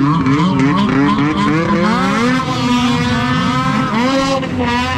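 Several snowmobile engines revving hard as the sleds skim across open water, their pitch rising and falling and overlapping.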